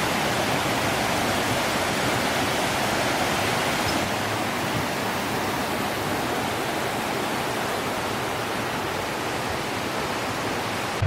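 Roughlok Falls, a waterfall, rushing steadily, a little softer from about four seconds in.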